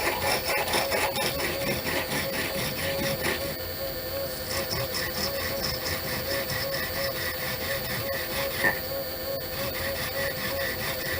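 Oiled sharpening stone rubbing against a new escape-wheel pivot in a small lathe, giving a quick, steady rasping over a constant hum from the lathe. The strokes are heaviest at first and lighten about three and a half seconds in.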